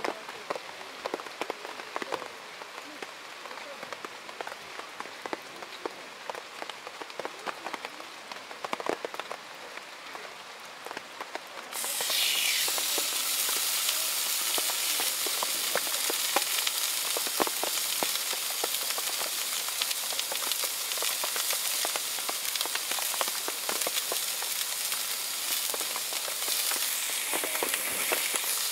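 Rain pattering with scattered drips; about 12 seconds in, a thick steak is laid on a hot ridged grill plate and starts sizzling, a loud steady hiss.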